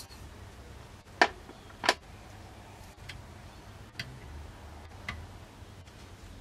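Two sharp metal clicks just over a second and just under two seconds in, then three fainter ticks spaced about a second apart. The sounds come from a screwdriver and steel parts being handled against a lever-action rifle's receiver as its hammer pivot screw is taken out.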